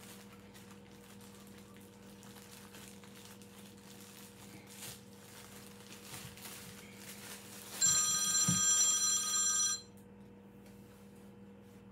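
A telephone rings once, about eight seconds in: a single ring of about two seconds, several steady high tones sounding together, cutting off suddenly. Under it, a faint steady hum.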